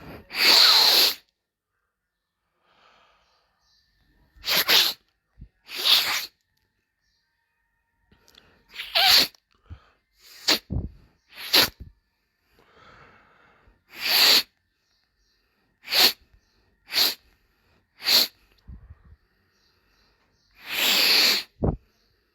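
Parakeet (perico) giving about a dozen short, noisy bursts of sound at irregular gaps, each lasting up to about a second.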